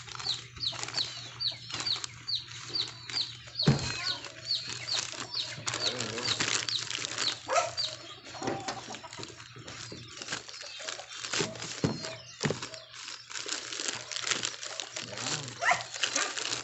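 A bird peeping over and over, short high falling chirps about three a second, which stop about halfway through. Throughout there are clicks and rustles of a parcel and its plastic wrapping being handled.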